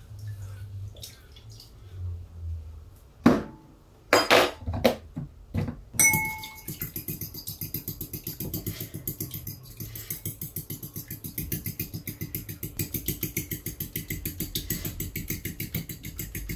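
A few knocks and a ringing clink of a utensil against a bowl, then from about six seconds in a fast, even hand-beating in the bowl, about five strokes a second: egg yolks being whisked by hand for mayonnaise.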